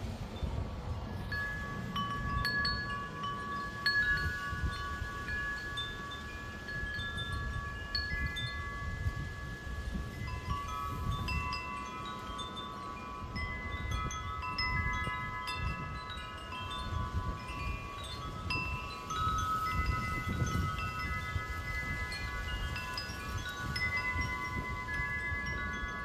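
Wind chimes ringing, with many notes struck one after another from about a second in and left to ring on over each other. Wind rumbles on the microphone underneath.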